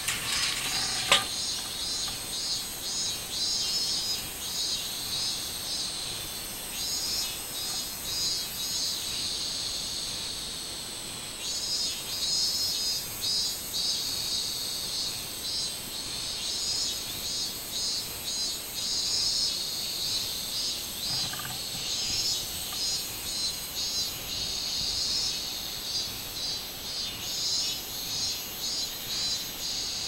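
Robust cicadas (minmin-zemi, Hyalessa maculaticollis) singing in chorus: a high-pitched song pulsing in quick rhythmic waves over a steady high drone. A single sharp click about a second in.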